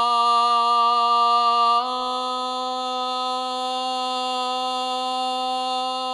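A muezzin calling the adhan, the Islamic call to prayer, holding one long drawn-out note of the phrase "ashhadu an la ilaha illa Allah". About two seconds in the note steps up slightly in pitch and softens.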